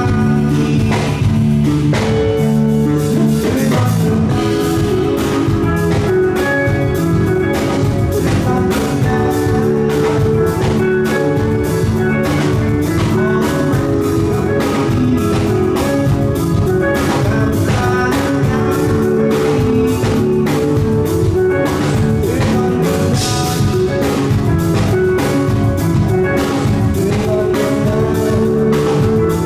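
A rock band playing live: guitar over a drum kit, with sustained low notes underneath, in an instrumental passage of the song.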